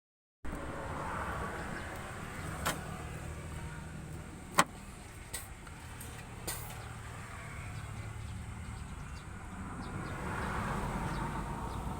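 Mitsubishi L300's 4D56 four-cylinder diesel engine running steadily, with a few sharp clicks, one louder about four and a half seconds in. The engine runs rough and slow to respond, which the owner traces to the camshaft timing being one tooth off after a timing-belt change.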